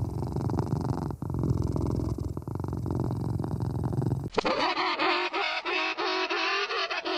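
Domestic cat purring steadily. About four seconds in it cuts off suddenly and plucked guitar music takes over.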